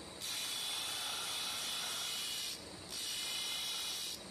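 Abrasive cut-off disc on a belt-driven spindle grinding a slot into a steel vise-jaw bar: a loud high hiss that starts suddenly, breaks off for a moment a little past halfway, then resumes and stops near the end. Between the cuts the spinning machine runs with a fainter steady hiss.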